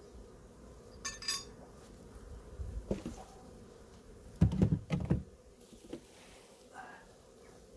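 Faint steady hum of honeybees around an opened hive, broken by a short metallic clink about a second in and a few heavy dull thumps, the loudest sounds, a little past the middle.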